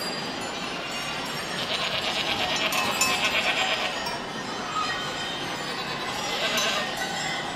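Goats bleating: a long, quavering bleat about two seconds in and a shorter one near the end, over a steady background din.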